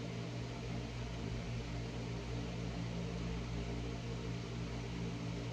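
A small motor-driven appliance humming steadily over an even hiss, the kind of sound an electric fan or similar room appliance makes while running.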